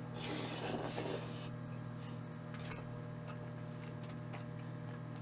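A rasping, rubbing noise lasting about a second near the start, then a few faint clicks, over a steady electrical hum.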